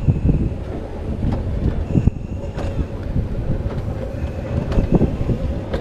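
Alpine coaster sled running fast down its steel tube rails: a steady low rumble from the wheels, with irregular clacks and knocks and a faint steady hum. Some wind on the microphone.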